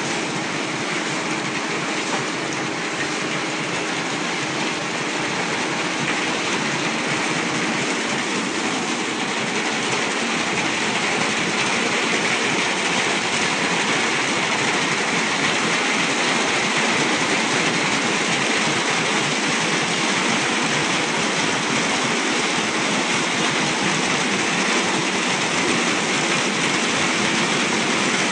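Rollover car wash machine running: a steady, continuous noise of its washing machinery, growing gradually a little louder in the first third.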